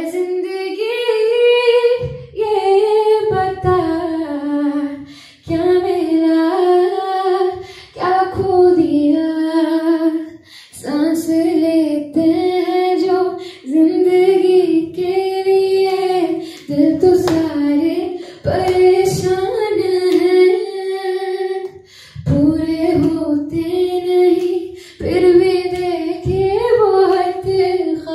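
A woman singing solo into a handheld microphone, in long held phrases broken by short pauses for breath.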